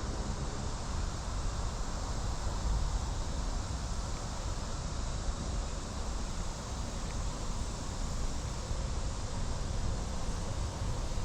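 Steady outdoor ambience: a continuous high-pitched insect buzz over a low rumble of wind on the microphone.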